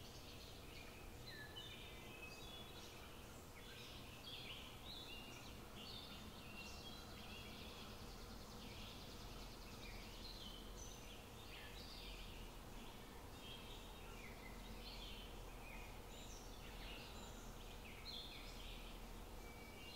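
Faint chirping of small birds, many short high calls over a low steady hum.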